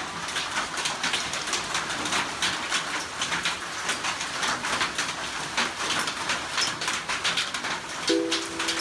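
Hailstorm: a dense, irregular clatter of hailstones striking the roofs and ground, with rain. Background music comes in near the end.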